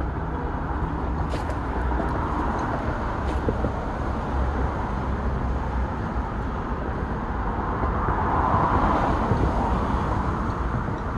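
Steady outdoor background rumble, heaviest in the low range, swelling about eight seconds in.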